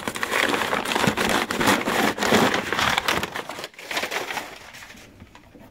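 Packing paper crinkling and rustling as a hand pulls at it inside a leather backpack, busy for about three and a half seconds and then dying away.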